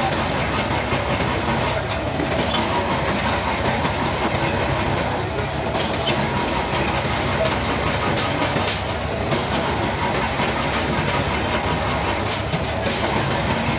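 Long knife blade scraping the scales off a large tripletail on a wooden block: a continuous, rapid rasping of repeated strokes, with scales flaking off.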